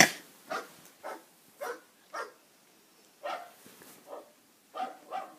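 A loud sharp burst at the very start, then a run of short dog barks about half a second apart, with a pause of about a second in the middle.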